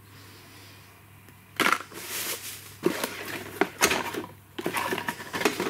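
Quiet room tone with a faint low hum, then, from about one and a half seconds in, irregular clicking, clattering and rustling of handling noise.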